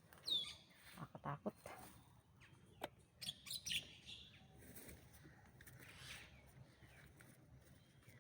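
Faint bird chirps, with a high falling note near the start, over quiet outdoor background. A single sharp click sounds near the middle.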